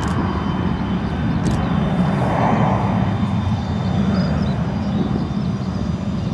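Dassault Falcon 2000 business jet's twin turbofan engines climbing out just after takeoff: a steady, low jet rumble as the aircraft pulls away.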